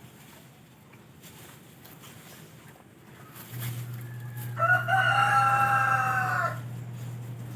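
A rooster crowing once, a single call about two seconds long, over a low steady hum.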